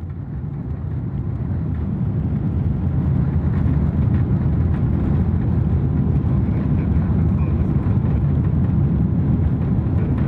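Boeing 777-300ER's GE90 engines at takeoff thrust and the rumble of the takeoff roll, heard from inside the cabin. The noise builds over the first two seconds, then holds loud and steady.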